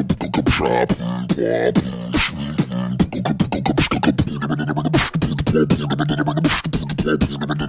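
Beatboxing with a voice deepened by inhaled sulfur hexafluoride: rapid mouth clicks and percussive hits over a low, deep held hum.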